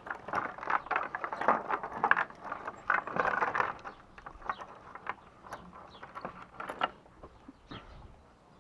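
A door being shut and fastened: irregular rattling and clanking for about four seconds, then a few scattered clicks as it settles.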